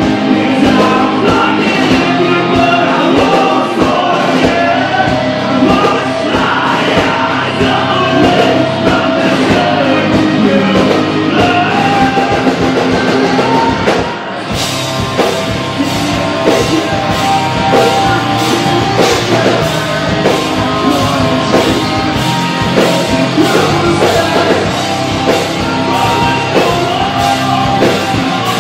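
Live alt-metalcore/hard rock band playing loudly, with a singer's voice over a drum kit and guitars. The music briefly drops about halfway through, then the full band comes back in with steady drum hits.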